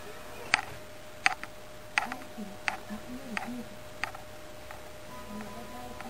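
Light, sharp ticks in a steady rhythm, about three every two seconds, growing fainter after about four seconds. A steady faint hum and a soft low wavering tune sit underneath.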